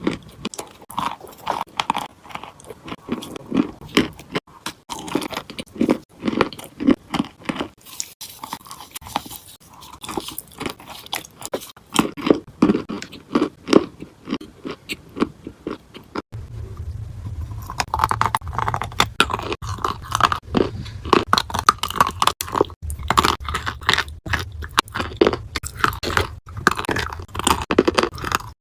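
Close-up crunching and chewing of dry clay with paste, many crisp crackling crunches in quick succession. About halfway through, a steady low hum comes in beneath the crunching.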